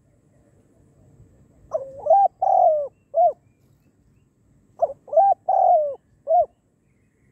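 Spotted dove cooing close by: two song phrases about three seconds apart, each a run of four coos in which the third coo is the longest and falls in pitch.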